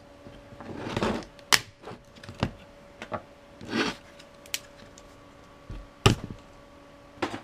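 Flat-blade screwdriver prying at a Dell laptop battery pack's plastic case: a series of sharp cracks and clicks from the casing, with scraping about a second in and again around four seconds in.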